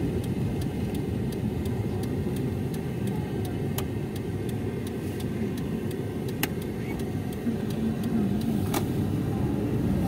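Steady low rumble of road and engine noise inside a moving car's cabin, with three faint sharp clicks.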